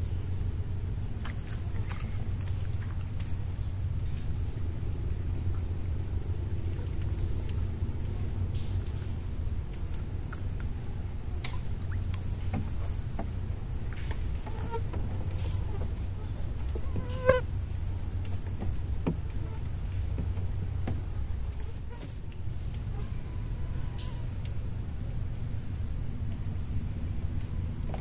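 Night insects chirring as a steady, high-pitched chorus over a low rumble, with a brief pitched call about seventeen seconds in.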